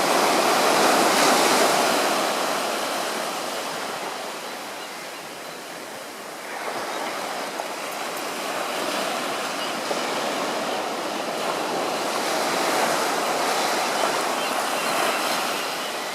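Ocean surf breaking and washing up the beach: a steady rush that swells in the first couple of seconds, eases off about the middle, then builds again.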